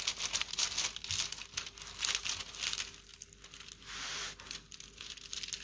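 Clear plastic protective film on a diamond painting canvas crinkling and crackling as it is pressed and smoothed with a plastic spatula to work out creases, with one longer swish about four seconds in.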